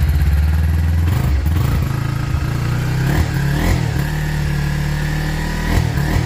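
Kawasaki Ninja 250's parallel-twin engine through its stock exhaust, cold and on choke, just fired up and idling steadily with a few small rises and falls in revs.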